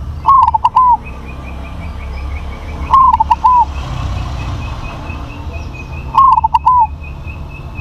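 Zebra dove (perkutut) cooing in three phrases, each of three quick, arching coos, about three seconds apart. Behind it runs a fast, even series of faint high chirps.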